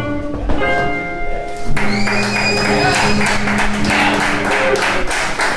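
Archtop electric and acoustic jazz guitars play the last notes of a blues and end on a held final chord about two seconds in. Audience clapping and voices break out over the ringing chord.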